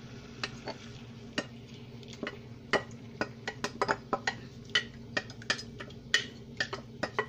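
A utensil clinking and scraping against a glass jar in many quick, irregular taps as thick tomato sauce is worked out of it into a pan, over a steady low hum.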